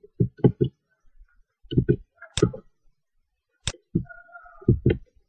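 Computer mouse clicks and keyboard key presses, about a dozen short, sharp clicks at uneven intervals, made while copying text and pasting it into a spreadsheet.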